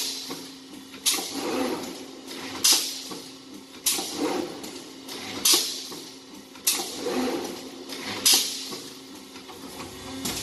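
Ladder-type brick force wire mesh welding machine running in its cycle: a sharp strike trailing off in a hiss repeats about every one and a half seconds, over a steady hum.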